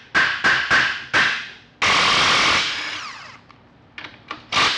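A hammer strikes metal four times in quick succession with a metallic ring, knocking at a seized transmission bolt to break it loose. Then an impact gun runs in a burst of about a second and a half that winds down with a falling whine, and gives another short burst near the end.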